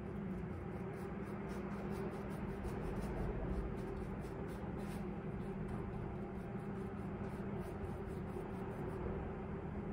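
Paintbrush scrubbing back and forth on a stretched canvas with acrylic paint, a soft scratchy stroke repeated several times a second, over a steady low hum.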